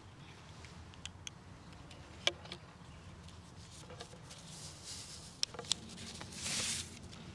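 Faint handling noise at a lectern microphone: a few small scattered clicks and one short rustle near the end, over a steady low hum.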